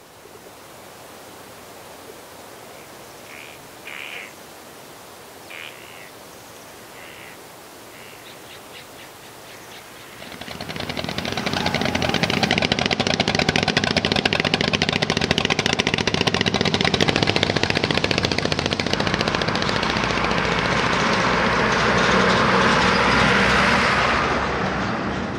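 A quiet outdoor background with a few short bird calls, then about ten seconds in a loud engine comes in and runs steadily with a rapid, even chugging, growing a little louder near the end.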